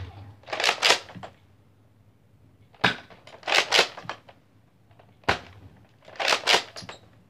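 Nerf blaster firing, three sharp shots about two and a half seconds apart, each followed about half a second later by a quick rattling clack of plastic.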